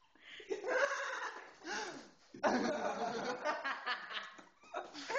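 Laughter in two long bouts, the second starting sharply a little over two seconds in after a brief dip.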